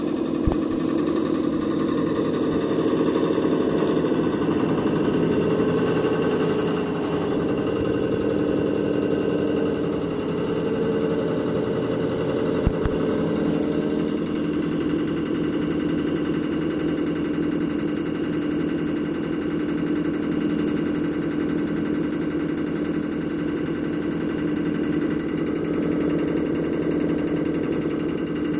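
Common rail injector test bench running under test: its drive motor and CP1 high-pressure pump give a steady hum with a rapid, even pulsing. A couple of sharp clicks come near the start and about halfway through.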